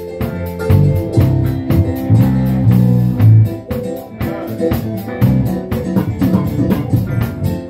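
Live band playing a blues-tinged groove: electric bass guitar, keyboard and drum kit over a steady beat.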